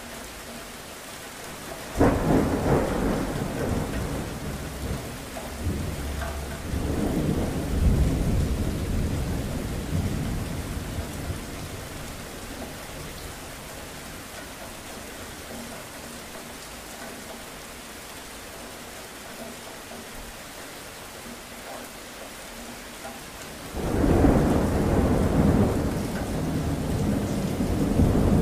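Steady rain with thunder: a sudden clap about two seconds in that rumbles on for several seconds, a second long rumble soon after, then only rain until another loud peal of thunder near the end.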